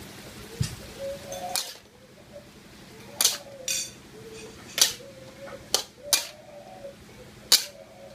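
Metal ladle clanking and scraping against a metal wok while stir-frying greens, about eight sharp knocks at irregular intervals.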